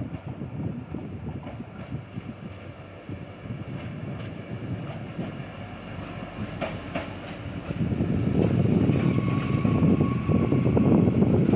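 TER Bourgogne regional train arriving and braking along the platform, its wheels rumbling and clicking over the rails. It gets much louder from about eight seconds in as it draws level, with a thin brake squeal near the end.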